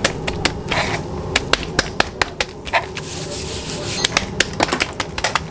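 Zırh (long mincing blade) chopping meat by hand on a steel counter: quick, irregular knocks of blade on metal. A steady low hum runs underneath.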